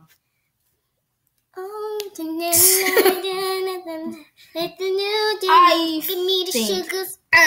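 A child singing in a high voice, holding long notes with a wavering pitch and short breaks between phrases, starting about a second and a half in after a brief silence.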